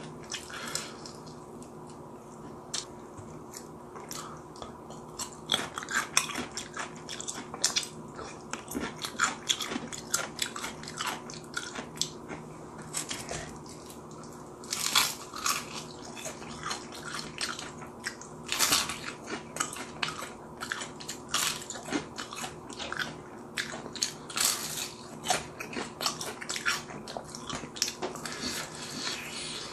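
Close-miked eating of fried chicken: crunching bites and chewing in irregular, sharp bursts, sparse for the first few seconds and then coming thick and fast from about six seconds in.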